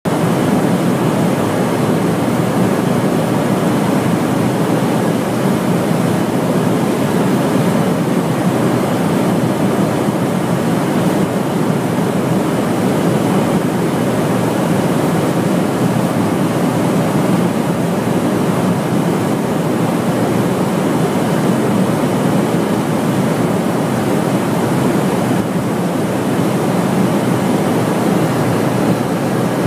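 Steady cabin noise inside a KC-10 tanker in flight: even rushing airflow and engine noise with no distinct tones, unchanging throughout.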